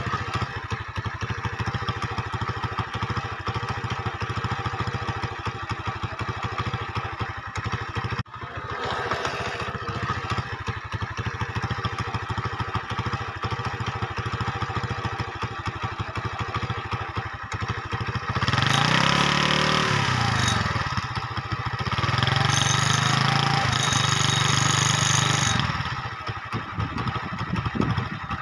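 Engine running with a fast, even chugging; about two-thirds through it grows louder and sweeps down and up in pitch, then runs steadily louder for a few seconds before settling back.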